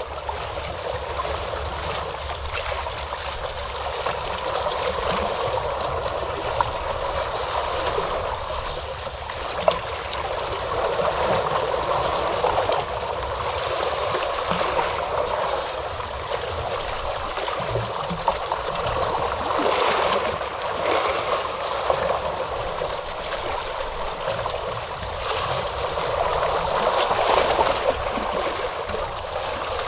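Ocean surf: a continuous rushing of water that swells and eases over several seconds at a time as waves wash in. A brief sharp click sounds about ten seconds in.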